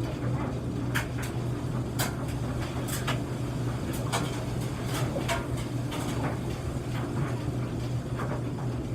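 A laundry machine running with a steady low hum, and light sharp knocks roughly once a second.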